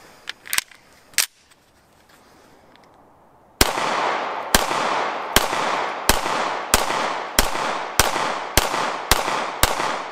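A 9mm Taurus G3-series pistol firing. A few sharp cracks come in the first second or so. Then, from about a third of the way in, a steady string of about ten shots follows, one every 0.6 to 0.9 seconds, each ringing out briefly.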